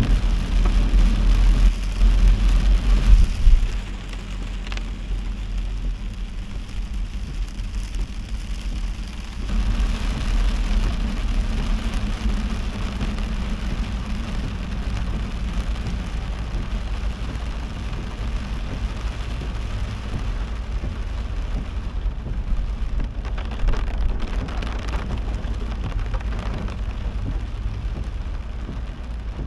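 Heavy rain falling on a moving car, over the low rumble of its engine and tyres on the wet road. The rumble is loudest for the first few seconds, then drops suddenly.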